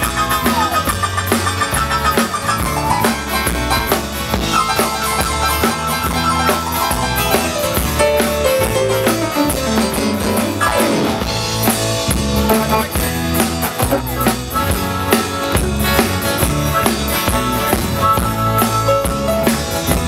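Live country-rock band playing, with strummed acoustic guitars, cello, electric bass and a drum kit keeping a steady beat.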